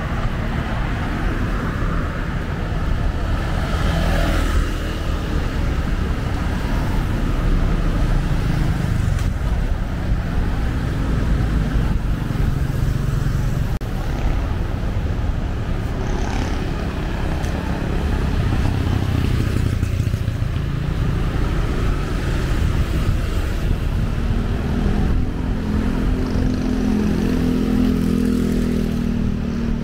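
Urban road traffic: the engines of passing vehicles run steadily, with one engine louder for a few seconds near the end.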